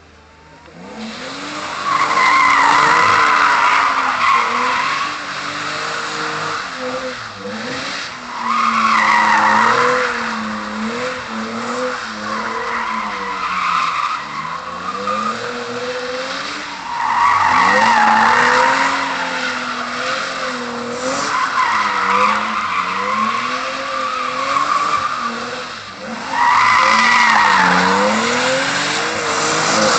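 BMW 328's straight-six engine revving up and down while the spinning rear tyres squeal and smoke through donuts, the squeal swelling loudly every few seconds as the car slides around.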